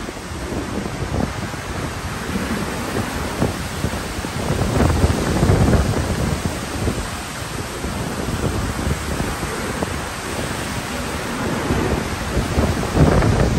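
Multnomah Falls in high flow after heavy rain: the lower falls and the flooded creek below rushing in a loud, steady roar that swells about five seconds in and again near the end.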